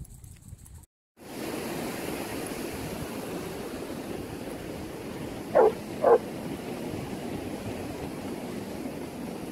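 Two short dog barks about half a second apart, over a steady rushing noise.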